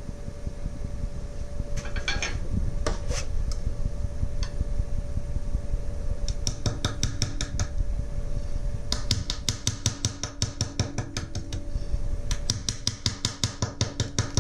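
Wood lathe running while a bowl gouge cuts an irregular walnut wedge: an interrupted cut, the tool striking the uneven wood in a rapid regular clatter from about six seconds in, over a steady motor hum, with a few single knocks before it.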